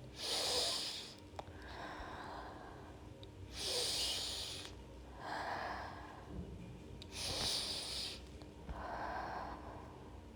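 A person breathing slowly and deeply, close to the microphone: three breaths, each a hissing breath followed by a softer, lower one, about every three and a half seconds.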